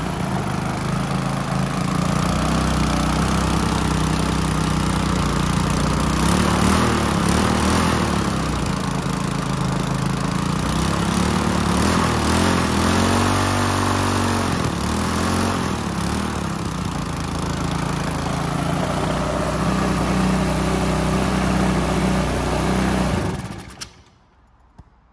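Small single-cylinder lawn mower engine running steadily, its speed rising and falling a few times. Near the end it cuts out abruptly as the ground wire is touched to metal, grounding the spark plug.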